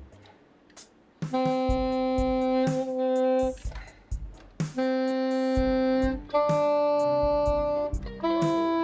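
Nuvo jSax 2.0, a small plastic saxophone, sounding four long held notes one at a time with short breaks, starting about a second in. The first two are on the same pitch and the last two step up higher. The notes are being checked against a tuner, and the player finds the pitch hard to control.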